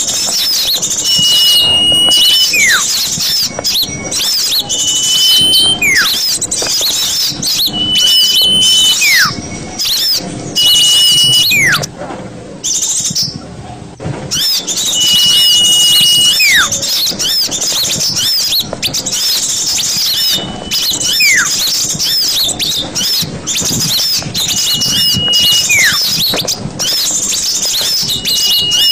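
Bird-lure recording of many small birds chirping densely and continuously. Over it, one whistled call repeats about every two and a half seconds: a short held high note, then a whistle sliding down in pitch. The chorus drops out for about two seconds just before the middle, then resumes.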